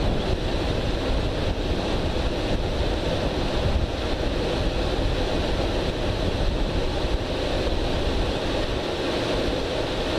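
Strong wind blowing across the microphone: a steady rushing noise with a low buffeting rumble.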